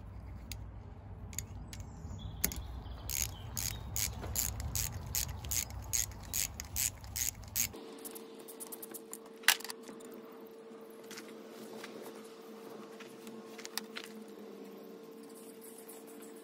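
Socket ratchet clicking in quick, even strokes, about four clicks a second, as small bolts are wound in to fasten a mounting plate onto a power steering pump. Then a few separate clicks over a faint steady hum, one sharper click about halfway through.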